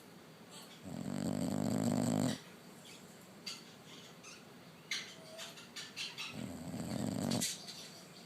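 A sleeping pet snoring: two long, pulsing snores about five seconds apart, with faint small clicks between them.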